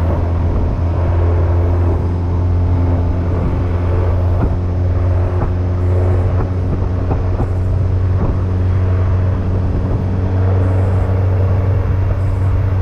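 Outboard motor pushing a jon boat at cruising speed: a steady, even engine hum, with the wash of the wake churning behind the stern.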